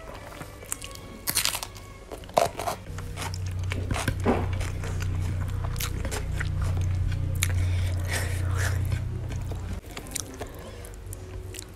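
Close-miked crunchy biting and chewing of raw green vegetables and fried catfish with rice, with a few sharp crunches in the first four seconds or so. A low steady hum runs under the chewing from about three seconds in and stops abruptly shortly before the end.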